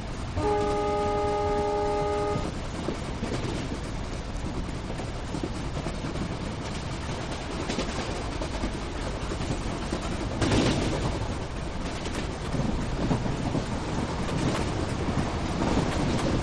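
Train horn sounding one steady chord for about two seconds near the start, followed by the steady rumble and rattle of a train running on the rails, which swells louder about ten seconds in.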